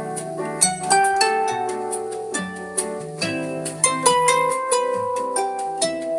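A Samsung Galaxy S25 Ultra ringtone playing: a quick melody of plucked notes over a low bass line.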